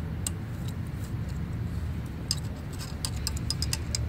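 Light metallic clicks and ticks of valve keepers, spring retainer and a clamp-type valve spring compressor being worked onto a valve stem of a 5.7 Hemi cylinder head. The clicks come thickest from about two seconds in, over a steady low rumble.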